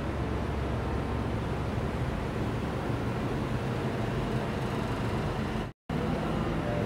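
Steady low rumbling noise with no distinct events, cutting out for a split second near the end.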